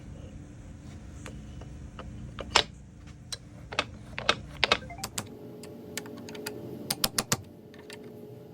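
Metal tools and starter-motor parts clicking and clinking as they are handled, about a dozen sharp knocks at uneven intervals over a low background hum that stops a little past halfway.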